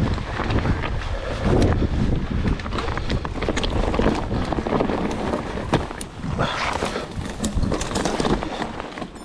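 Mountain bike ridden over a trail: wind buffeting the microphone and tyre rumble, with many irregular rattling knocks from the bike.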